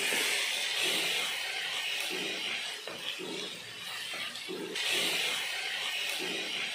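Chopped onions, tomatoes, potatoes and ginger-garlic paste sizzling in oil in a pan, with a wooden spatula stirring and scraping through them in irregular strokes. They are being sautéed until the raw smell of the paste goes.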